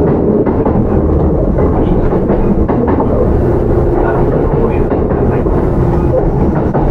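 Running sound of a Kintetsu 8810 series field-chopper electric train, heard from inside the car: a steady loud rumble of the wheels on the rails with scattered clicks from the track, and a low steady hum through the middle few seconds.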